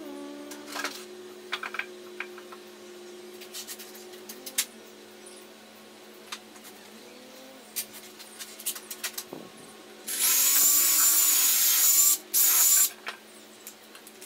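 Cordless drill running in two bursts: one of about two seconds, then a short one, with a high whine. Before it come scattered clicks and knocks of wood and tools being handled.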